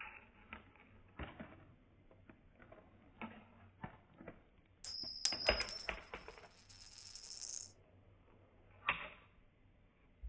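A small plastic ball clicking and tapping as it runs through a Lego chain-reaction track built with ruler ramps. About five seconds in comes a sharp strike with a high ringing that lasts about three seconds, under a rattle that grows louder, and there is one more knock near the end.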